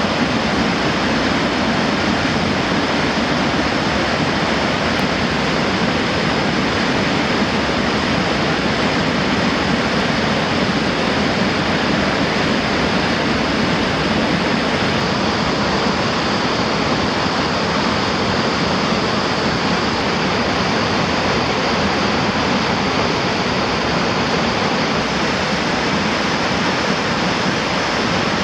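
River in spring flood pouring over falls and dam sluices: a steady, unbroken rush of whitewater.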